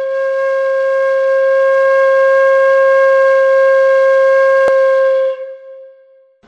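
A single long held musical note at one steady pitch, like a wind instrument or synthesizer tone, dropping away about five seconds in and fading out. A brief click sounds shortly before it stops.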